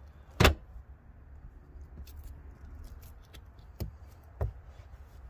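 Hand handling and pressing carpeted trunk trim covers into place: one sharp knock about half a second in and two lighter knocks near the end, over a low steady rumble.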